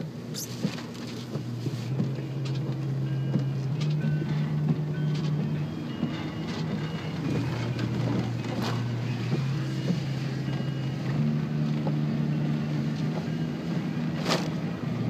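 Car cabin noise while driving through a storm: a steady low engine hum that shifts pitch a couple of times, over a constant wash of rain and road noise, with a few sharp knocks.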